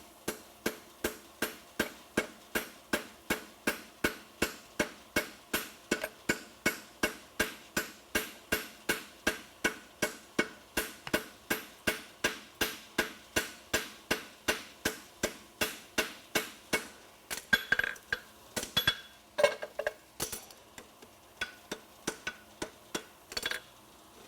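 Farrier's hammer striking a steel horseshoe on the anvil with a ringing clang, drawing out the toe clip: a steady run of nearly three blows a second, then slower, irregular and louder blows for the last several seconds.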